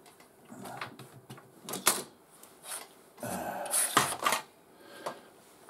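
Handling noises as something is taken off a glued radio cabinet: scattered clicks and knocks, with a brief scraping, rustling stretch about three seconds in.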